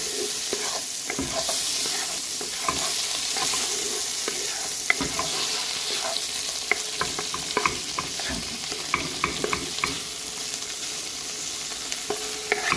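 Conch, onion, tomato and garlic sizzling in butter in a large metal pot while a spoon stirs them, clicking and scraping against the pot over a steady frying hiss.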